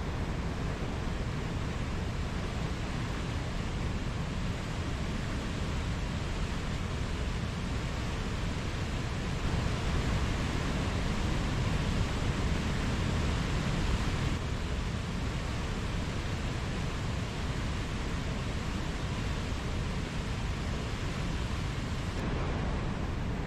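Mountain stream rushing steadily over rocks, a continuous water noise that swells slightly louder and brighter for a few seconds around the middle.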